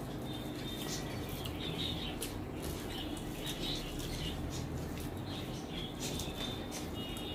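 Close-miked eating sounds: a run of wet clicks and smacks of chewing.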